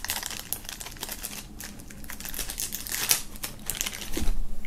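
Small clear plastic bag crinkling and crackling as it is handled and a metal pin is taken out of it: many short, irregular crackles.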